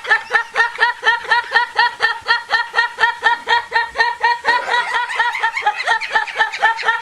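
Laughing sound effect: a rapid snicker whose identical pulses repeat evenly, about four or five a second, like a looped clip.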